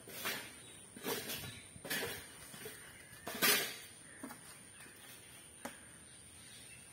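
An Asian elephant shifting on dry leaf litter and fallen palm fronds: a few short rustling crunches in the first half, the loudest about halfway through, then a single sharp click.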